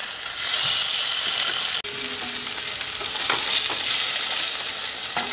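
Marinated fish pieces shallow-frying in hot oil in a pan: a steady sizzling hiss with a few spattering pops. The sound breaks off for an instant just under two seconds in.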